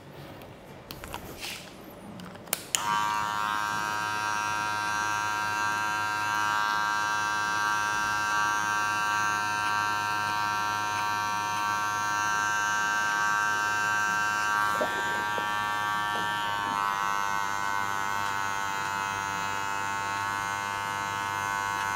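Electric hair clipper switched on a few seconds in after a few light clicks, then running steadily with an even whine and hum; its pitch drops slightly about two-thirds of the way through.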